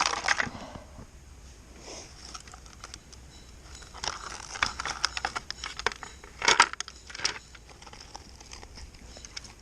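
A small device recovered by magnet fishing being handled by hand: clusters of clicks, rattles and crinkly scraping, one at the start, another about four seconds in, and the loudest about six and a half seconds in.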